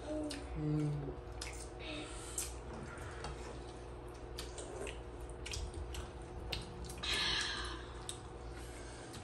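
People eating with their hands at a table: wet chewing and lip-smacking with many small clicks. There are a few short humming voice sounds near the start and a louder rustling crunch about seven seconds in.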